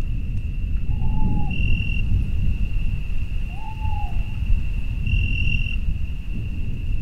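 Nature ambience: a steady high-pitched insect-like drone that swells every few seconds over a low rumble, with two short hooting calls, about one second in and again around four seconds in.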